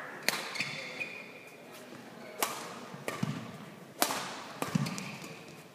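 Badminton rally: sharp cracks of rackets striking the shuttlecock, about four strokes one to two seconds apart, with low thuds of players' feet on the court.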